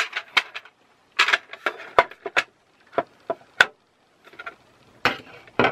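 Irregular sharp clicks and knocks of hard plastic and metal parts as the caddy's metal center rod and small L-shaped fitting are worked into its plastic base, about ten in all with short gaps between.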